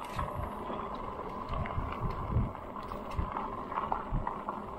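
Wind buffeting the microphone over the rolling noise of an e-bike in motion, with a steady hum and scattered small ticks.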